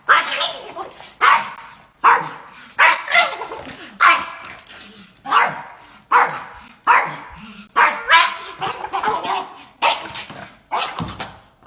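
A dog barking over and over in a steady run of about fifteen loud barks, one every second or less.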